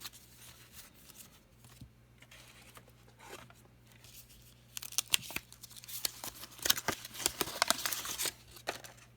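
A trading card pack wrapper being torn open and crinkled: a few small rustles, then from about halfway in a dense run of sharp tearing and crackling for about three and a half seconds.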